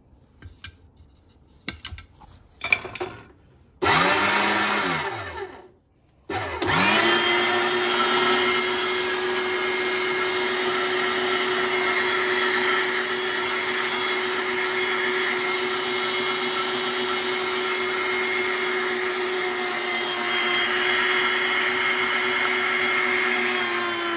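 Electric meat grinder mincing tomatoes. After a few clicks of handling, the motor starts about four seconds in, winds down and stops, then spins up again a moment later and runs steadily as tomato pieces are pushed through.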